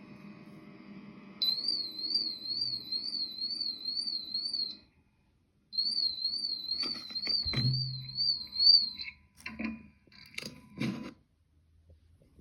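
Homemade fire alarm sounder giving a high-pitched warbling tone that rises and falls about three times a second, in two bursts of about three seconds with a short silence between. During the second burst and after it come several sharp clicks and knocks, with a low thump in the middle.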